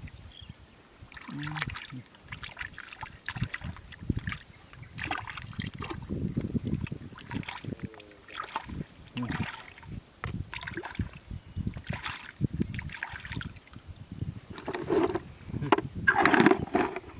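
Bare hands squelching and sloshing through soft, watery mud while digging for clams, in irregular wet squelches and splashes. Near the end there are a few louder sounds.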